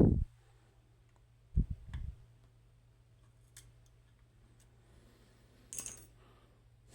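Handling of the just-opened lock and picking tools: a few dull bumps in the first two seconds, scattered faint clicks, and a brief scraping rustle near the end.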